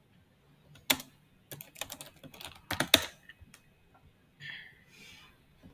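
Typing on a computer keyboard: a single keystroke about a second in, then a quick run of keystrokes ending in one louder stroke about three seconds in.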